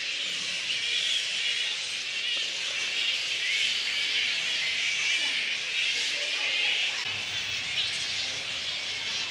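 A roosting colony of little red flying foxes, a dense, continuous chorus of many high squeaks and chatter.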